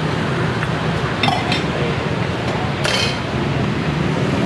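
Metal utensils and ceramic bowls clinking at a noodle stall: a few sharp clinks a little over a second in and a louder clatter about three seconds in, over a steady background hum.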